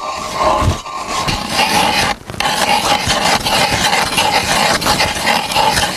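Hand-cranked ice auger boring through lake ice: a continuous grinding scrape of the blades cutting into the ice, briefly breaking off about two seconds in.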